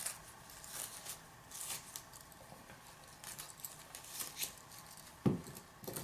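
Faint rustling and scraping of wrapping being handled and pulled off a padlock, with small clicks and a thump about five seconds in.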